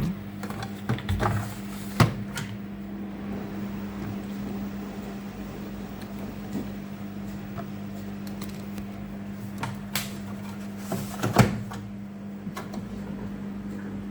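A washing machine's steady low electrical hum, with a few sharp clicks and knocks of handling: one about two seconds in, and a louder one near the end.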